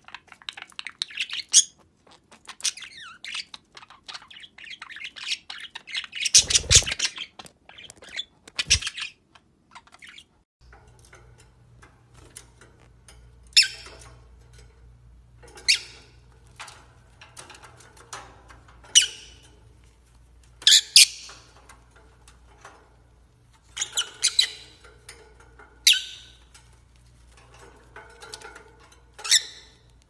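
Budgerigars chattering in quick, busy chirps, with two thumps partway through. Then peach-faced lovebirds give short, shrill squawks every couple of seconds over a low steady hum.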